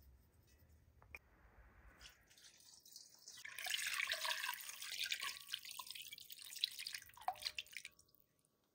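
Liquid poured in a steady stream from above into an aluminium cooking pot over chicken pieces, splashing loudly for about five seconds, then thinning to a few drips near the end. A faint sprinkle of salt over the chicken comes first.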